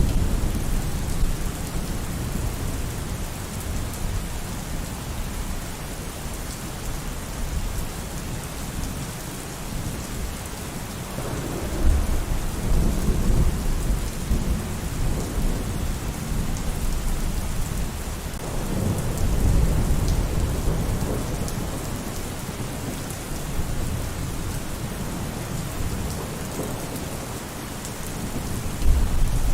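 Steady heavy rain with rolling thunder. Low rumbles swell up about a third of the way in, again past the middle, and once more near the end.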